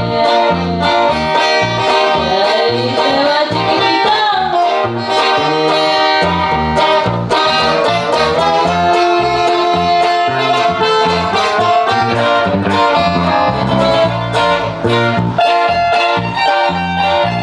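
Live band music, an instrumental passage led by plucked guitar over a pulsing bass line and drums.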